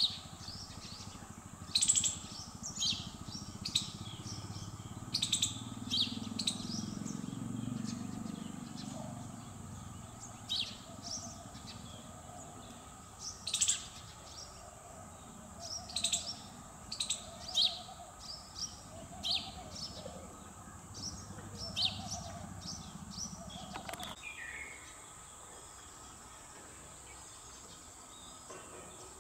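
Small birds chirping outdoors, short high calls coming every second or so, over a faint low background rumble. About three-quarters of the way through there is a single knock, and after it the rumble is gone and the chirps grow sparse.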